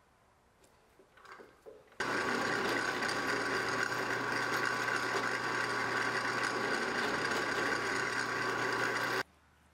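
Faint handling clicks, then about two seconds in a benchtop drill press starts running with a steady hum as it drills small stitching holes through the leather welt of a knife sheath. It cuts off suddenly near the end.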